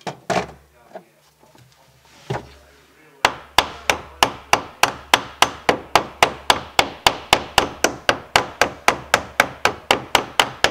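Hammer peening a new copper boat nail over its rove to form a rivet, with a dolly held against the nail head on the outside of the wooden hull. A few separate knocks, then from about three seconds in a steady run of sharp taps, about three and a half a second.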